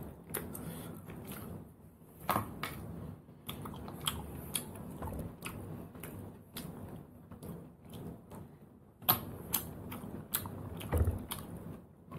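Scattered small clicks and taps of a toothpick picking cooked snail meat out of the shells, with chewing in between; a few sharper clicks about two seconds in and near the end.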